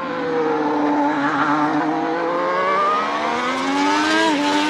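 Formula One race car engine sound effect. The engine note dips at first, then climbs steadily as the car accelerates, with a drop in pitch near the end like a gear change.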